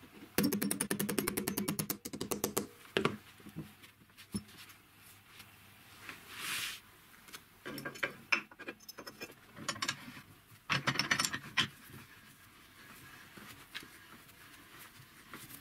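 A thin steel blade scraped along a galvanised steel pipe, making a rapid metallic rattle for about two seconds. Then come metal knocks and clinks as steel pipe pieces are handled and set in a bench vise, with another short rapid rattle about eleven seconds in.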